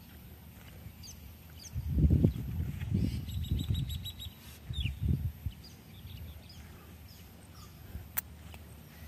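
Birds chirping and calling, with a quick trill about three and a half seconds in and a short falling whistle just before five seconds. Louder low, muffled thumps come and go between about two and five seconds. A single sharp click sounds near the end.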